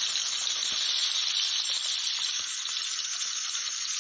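A steady, even hiss, like a shaker or rustling, with no pitch to it.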